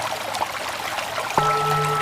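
A mindfulness bell is struck about a second and a half in and rings on with several steady tones, its lowest tone pulsing slowly, over a constant trickling stream of water.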